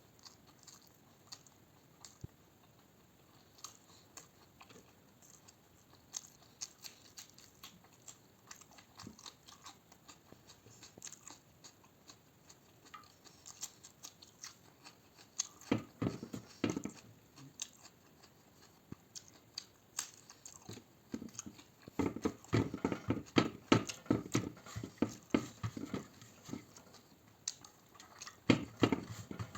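Close-miked chewing and biting of food, with small mouth clicks throughout and louder bursts of chewing about halfway through and again over most of the last third.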